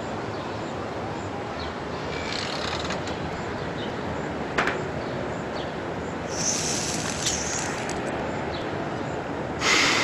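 Dog exhaling in a sharp, loud breathy puff near the end, over a steady outdoor background hiss. A fainter breathy hiss comes about six to seven and a half seconds in, and a single click sounds about halfway.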